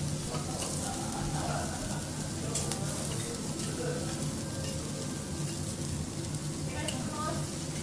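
Food sizzling on a hot teppanyaki griddle, a steady frying hiss with a few faint clicks.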